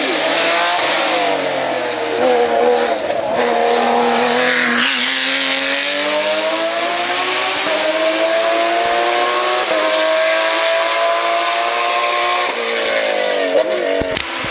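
Race car engine at full throttle climbing a hillclimb course, its pitch rising through long pulls and dropping back at gear changes several times.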